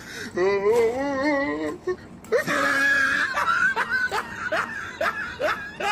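Laughter: a drawn-out voice wobbling in pitch, then a run of short, high, rising squeals of laughter about two a second.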